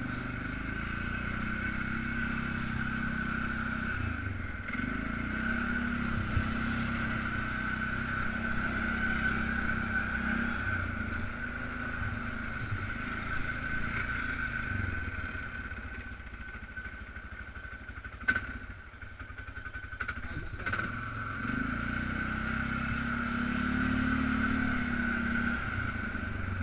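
Polaris Sportsman 500 ATV's single-cylinder engine running as it rides, with a steady high whine above it. About two-thirds of the way through it eases off to a lower, quieter run for a few seconds, with one sharp knock, then picks up again.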